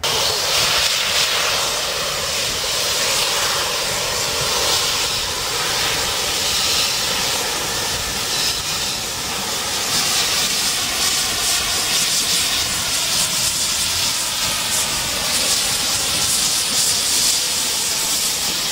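Steam locomotive letting off steam: a loud, steady hiss that comes in suddenly and holds without a break.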